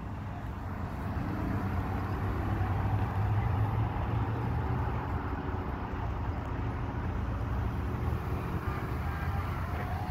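Passing road traffic: car and pickup engines running as they drive by, a steady hum with a low drone that swells about three seconds in.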